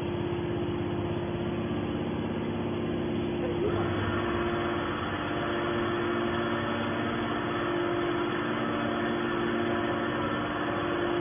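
Hydraulic scrap baler machinery running with a steady hum with fixed tones. About four seconds in, a harsher, fuller layer of mechanical noise joins and carries on.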